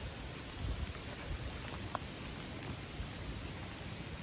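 A steady, even hiss of outdoor noise under the forest canopy, with soft, irregular low thumps of footsteps on the forest floor.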